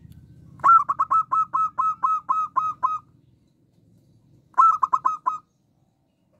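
Zebra dove (perkutut) calling: a run of about ten short, clipped notes at roughly four a second, then after a pause a quicker run of about five notes.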